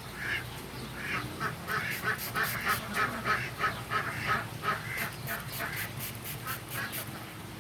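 A fast series of short, repeated animal calls, several a second.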